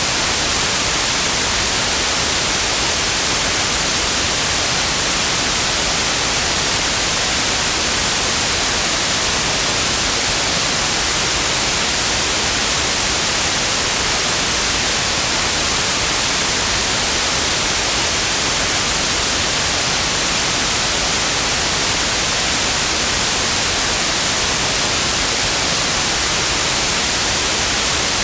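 Steady white noise: an even, unchanging hiss that is brightest in the high frequencies.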